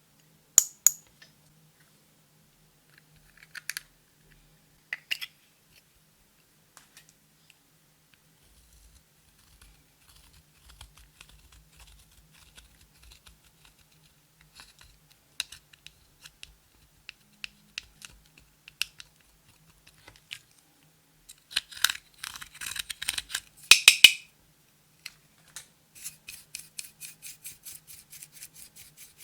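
Clear slime being squished and folded by hand, making sharp sticky clicks and pops: scattered at first, a dense crackling burst about three quarters of the way through, then a quick even run of about five pops a second near the end.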